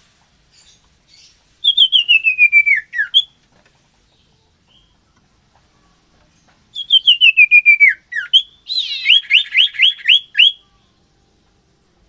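Common iora singing: two loud phrases of quick notes stepping steadily down in pitch, the second followed by a quick run of rising, upward-slurred whistles.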